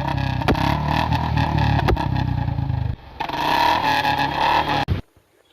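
Royal Enfield Bullet single-cylinder motorcycle engine running, with a few sharp cracks over the steady engine note. The sound changes abruptly about three seconds in and drops away shortly before the end.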